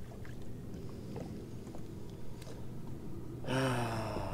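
Faint small clicks and rustles from hands working braided fishing line into a knot, over a low steady hum. Near the end a man makes a drawn-out wordless vocal sound that bends in pitch.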